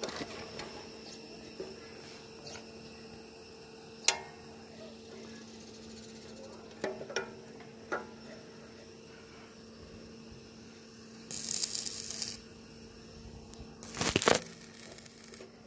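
Scattered sharp clicks and knocks from hands working the abrasive cutting disc and its fittings on a metal cut-off machine during a disc change, over a faint steady hum. Two short rustling bursts of handling noise come in the latter half, the louder one near the end.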